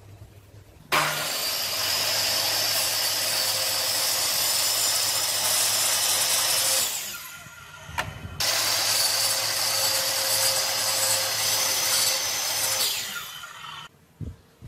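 INGCO sliding miter saw running and cutting into a board, twice. Each run is a steady high whine with cutting noise that starts abruptly and tapers off as the blade spins down. A click falls between the two runs.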